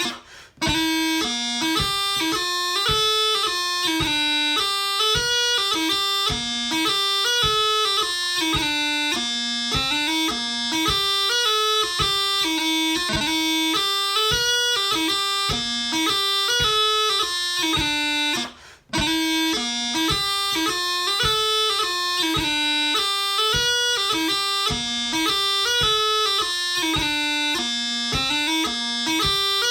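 Bagpipe chanter playing a hornpipe melody at a slow practice tempo, in quick stepping notes, with two short breaks: one just after the start and one a little past halfway.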